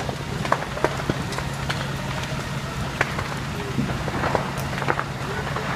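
Burning building crackling, with irregular sharp snaps and pops over a steady low hum from the parked fire engine's running engine.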